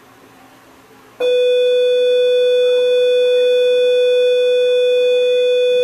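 A single loud, steady electronic beep tone that starts about a second in and holds at one pitch.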